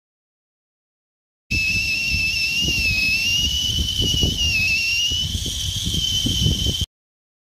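Stainless steel whistling kettle on a campfire whistling at the boil: one steady high whistle that wavers slightly in pitch, over a low rumble. It starts about a second and a half in and cuts off abruptly near the end.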